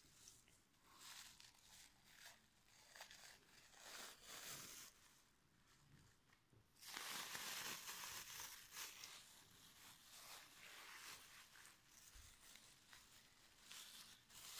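Clear plastic bags crinkling and rustling in the hands as they are opened and pulled off wrapped parts. The sound is quiet and comes in uneven bursts, with the loudest stretch starting about seven seconds in.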